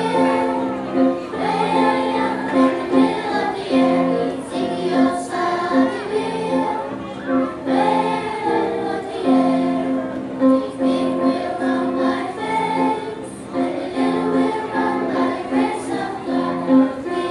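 A children's choir singing a song together, accompanied by an electric keyboard.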